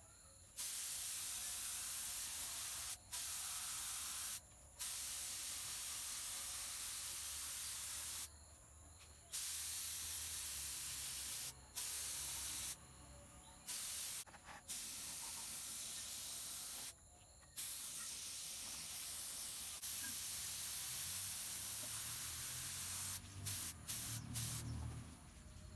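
Red spray paint hissing from the nozzle onto a hydraulic bottle jack, in long bursts of a few seconds with short pauses between, then a few quick short bursts near the end.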